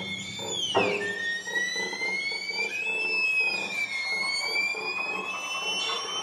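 String quartet with piano playing contemporary music in high, thin sliding string tones. One glides quickly downward just before a sharp knock about a second in, then another rises slowly, dips and rises again over a soft grainy texture.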